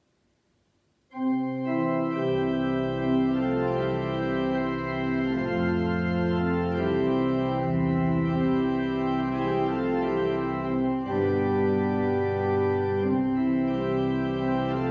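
Organ begins playing a hymn about a second in, with sustained chords over a bass line; deeper bass notes join about two seconds in.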